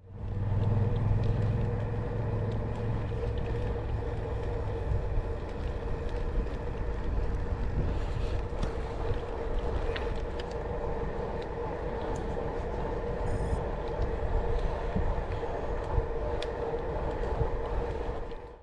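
Wind noise on an action camera's microphone and tyre noise from a gravel bike being ridden along a path. A steady hum runs under it, with a heavier low rumble in the first few seconds and a few faint clicks.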